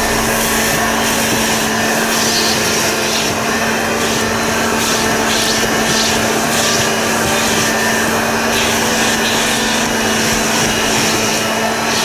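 HondaVAC built-in vacuum in a 2014 Honda Odyssey running steadily, a constant hum under the rush of air, as its nozzle is worked over the carpet picking up spilled debris.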